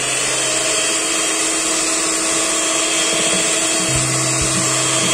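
Handheld electric mixer running steadily at speed, its twin beaters churning a thick almond-flour cake batter.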